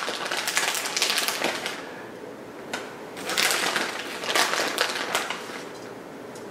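Rustling, crackly handling of shredded cheese being grabbed by hand and sprinkled over stuffed mini bell peppers, in two spells of bursts with a short click in between.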